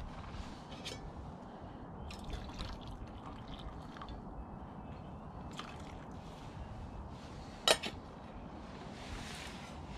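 Hot water poured from a metal camping pot into a mug, trickling and dripping, with light clinks of metal pot lids and cookware. One sharp metal clink, the loudest sound, comes about three-quarters of the way through.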